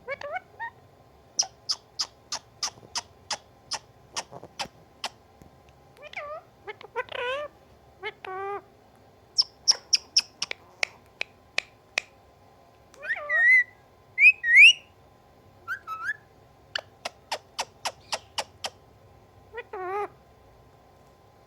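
Pet parrot calling: runs of short, sharp chirps and clicks, broken by a few longer gliding calls that bend up and down like a cat's meow, in imitation of a cat.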